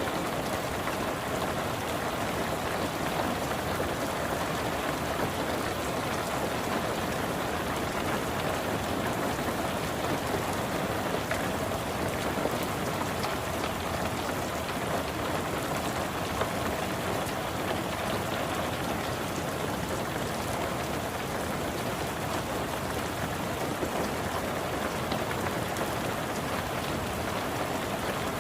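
Steady rain falling on a car's roof and windows, heard from inside the car, with scattered single drops ticking through it.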